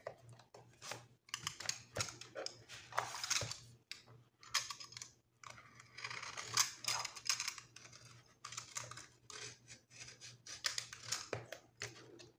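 Craft knife (box-cutter blade) cutting through paper, a run of short irregular scratches and clicks.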